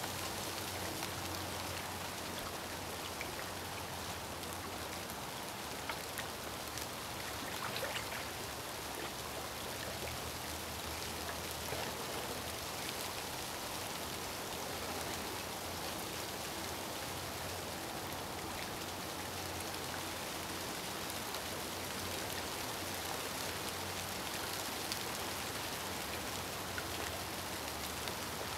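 Light rain falling: a steady hiss with a few faint scattered drop ticks.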